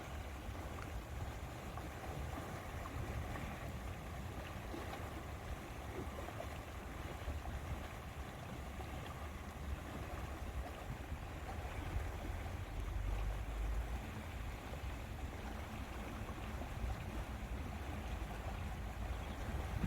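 Steady lakeside ambience: a soft, even wash of water with a low, gusting rumble of wind on the microphone.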